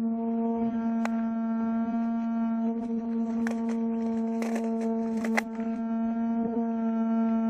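Steady electric hum of a small fan running close to the microphone, one constant pitch with overtones, with a few sharp snaps of airsoft gunfire cutting through it, the loudest about five seconds in.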